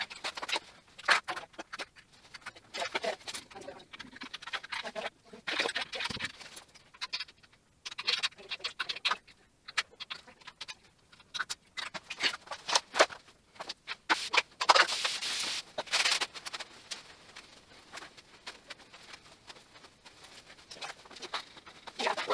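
Irregular taps, clicks and rubbing from handling and wiping a frameless glass shower door, with a short hiss about fifteen seconds in and again near the end.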